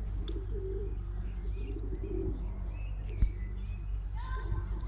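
Pigeons cooing in low murmurs, with a small bird giving a quick run of high chirps twice, about two seconds in and near the end. A single sharp knock sounds about three seconds in.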